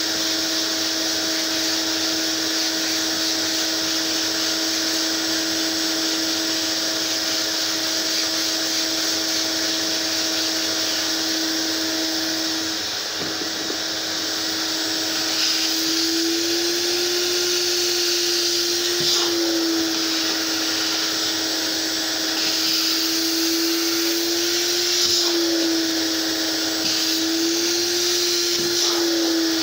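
Fabric-cleaning extraction machine's vacuum motor running steadily with a strong hiss. From about halfway its pitch wavers slightly up and down, as the load on it changes.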